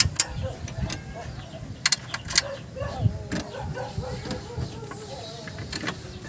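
Sharp clinks and knocks of hand tools and metal parts being handled during suspension repair work, a few single strikes spaced irregularly over a steady low rumble, with faint voices in the background.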